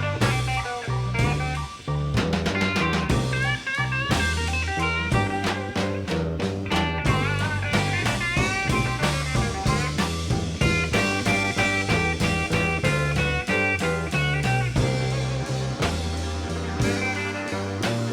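Live electric blues band playing a slow instrumental break: a lead line of short, bending notes over a walking bass line and drums.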